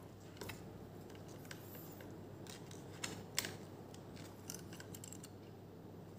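Pliers tightening a small fitting on a foam dart blaster: faint scattered metallic clicks and scrapes, the two loudest about three seconds in, over a faint steady hum.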